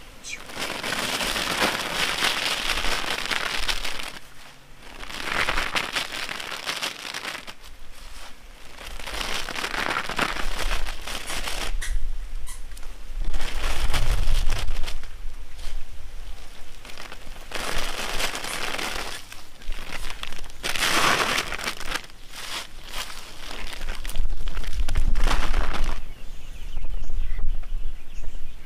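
Dried cassava strips scooped and tossed by hand, showering down onto a plastic tarp with a rustling patter, with the tarp crinkling; it comes in about seven bursts a few seconds apart.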